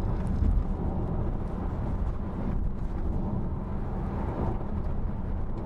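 Steady low road rumble and wind noise inside the cabin of a CUPRA Born E-Boost, a fully electric car, while it drives, with no engine sound.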